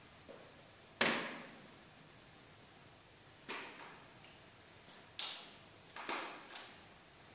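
A kitten knocking about inside a plastic laundry basket: a series of about six sharp plastic knocks and rattles, the loudest about a second in.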